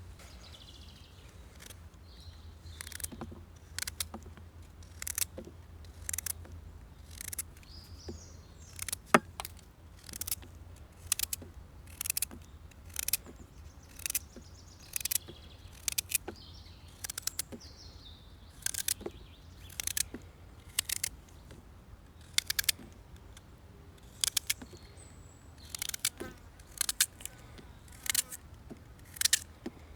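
Sharp knocks repeating about once a second, a few coming in quick pairs. Birds chirp faintly in the background.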